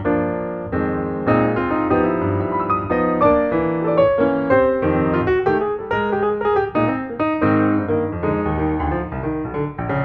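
Background music led by piano, a steady run of notes.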